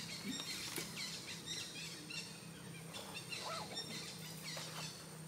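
Wild birds chirping: many short, high calls and whistles, over a faint steady low hum.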